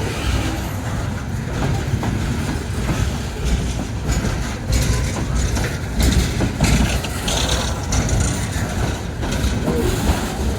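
Loaded coal train rolling past, its steel wheels running on the rails in a steady low rumble, with louder higher-pitched rattling about six to eight seconds in.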